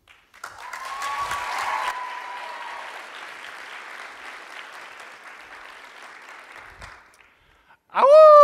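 Audience applauding with a cheer, fading out over about six seconds. Near the end a long wolf howl starts, louder than the applause: it rises quickly and then slowly falls in pitch.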